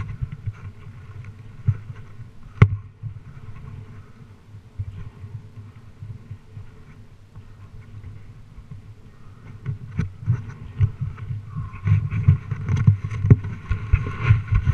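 Suzuki RM-Z250 dirt bike's single-cylinder four-stroke engine running at low revs, picking up and getting louder in the last few seconds. Two sharp knocks stand out along the way.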